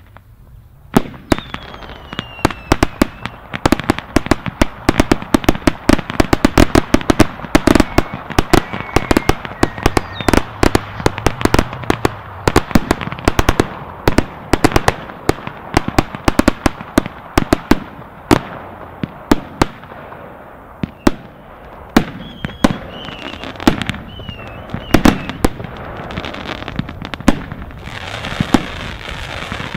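Consumer fireworks going off: a dense, rapid string of bangs and crackling reports from shells and cake shots, with several whistles gliding down in pitch. Near the end a steady hiss builds as a fountain sprays sparks.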